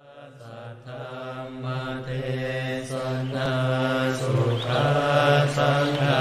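Background soundtrack of low, steady chanting over a held drone, fading in from silence at the start and growing louder.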